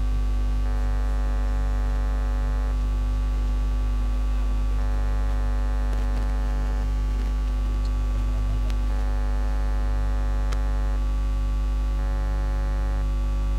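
Steady electrical mains hum with a dense stack of buzzing overtones, unbroken throughout. A higher, thinner buzz switches on and off every few seconds.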